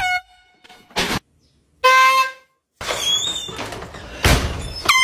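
Handheld canned air horn sounded in three short blasts, each at a different pitch. Between them come a short high cry about three seconds in and a loud thump.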